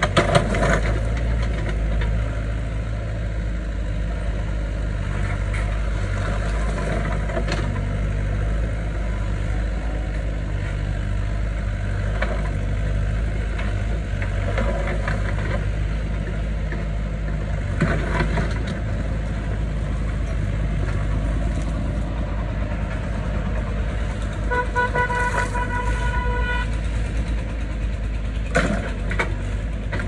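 Doosan mini excavator's diesel engine running steadily under digging load, with a few knocks and scrapes as the bucket works into stony soil. Late on, a horn sounds once for about two seconds.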